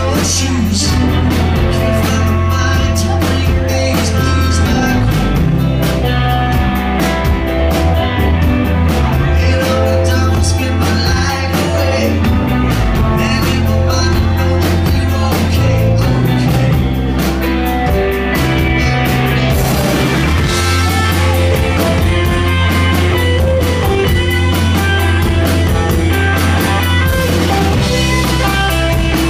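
Indie rock band playing live: electric guitars, bass and drum kit with a steady cymbal beat, and a man singing over them.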